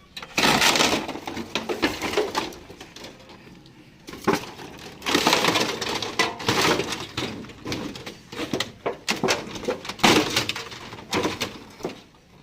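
A refrigerator being smashed to pieces: repeated cracking, crunching impacts in three dense bouts of breaking.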